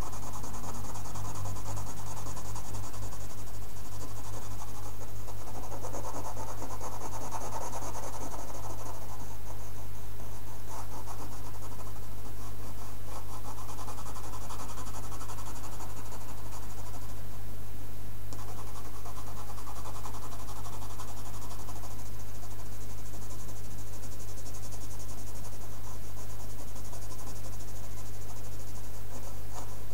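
A colored pencil scratching on paper in bouts of short back-and-forth strokes as a dark area is shaded in, over a steady low hum.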